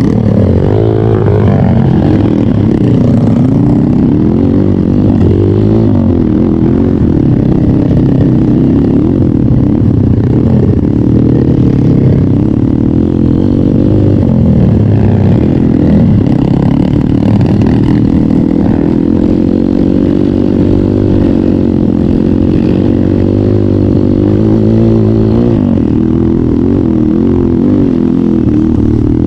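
Trail motorcycle engine running under load while riding, its pitch rising and falling over and over as the throttle is worked.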